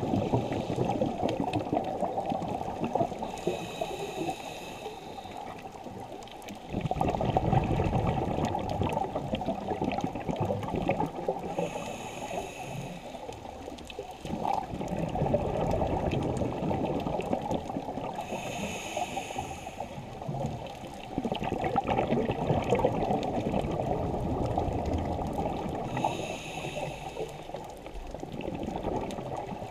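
Scuba diver breathing through a regulator underwater: a short hissing inhale about every seven seconds, four times, each followed a couple of seconds later by a longer burst of exhaled bubbles gurgling.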